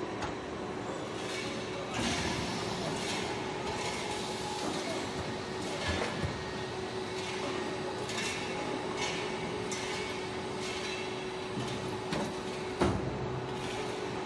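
Forging shop machinery running: a steady noisy din with a constant hum, broken by a few sharp metal clanks and knocks, the loudest near the end.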